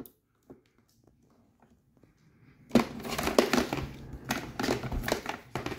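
Plastic packaging crinkling and rustling as it is handled, starting about three seconds in after a few faint clicks.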